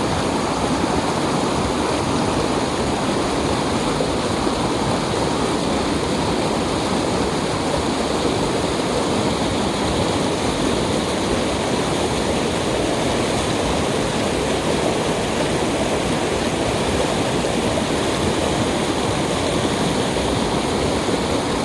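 Mountain valley stream rushing steadily over rocks, a dense, even water noise with no pauses.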